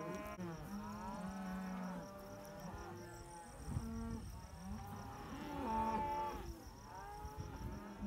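Herd of Angus cattle mooing, many overlapping calls of different pitches, some long and drawn out, rising and falling over one another.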